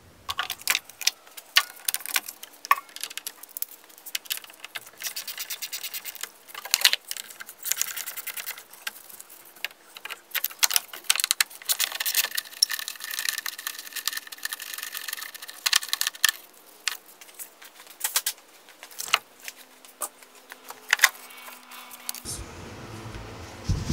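Hand tools working on car battery hardware: many irregular sharp metallic clicks and clinks, as of sockets and a wrench, densest partway through, while the battery's terminals and hold-down are undone and the battery is lifted out.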